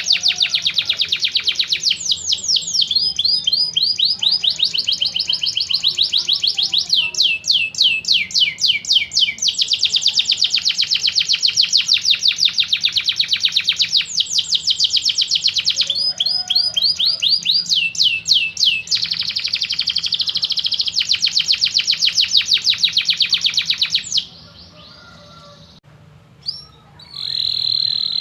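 Domestic canary singing: long runs of very fast, high trills, the trill shifting to a new pattern every second or two. The song breaks off about 24 seconds in and comes back near the end as a steady high whistled note.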